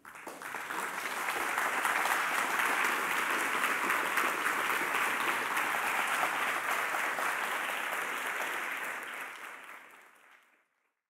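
Audience applauding, building over the first second or two, holding steady, then fading away near the end.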